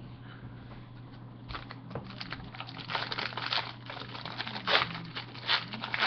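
Foil trading-card pack crinkling and crackling as it is handled and torn open by hand. The irregular crackle starts about a second and a half in and is loudest near the end.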